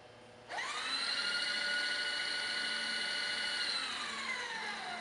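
Mill table power feed motor whining as it drives the table. About half a second in, it spins up quickly to a steady high whine. Near the end it slows, the pitch falling away.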